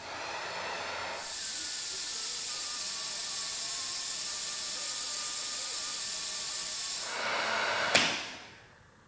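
Electric heat gun running, a steady rushing hiss of blown air with a faint motor whine, shrinking heat-shrink tubing onto a joint. It grows louder about a second in and winds down over the last second or two.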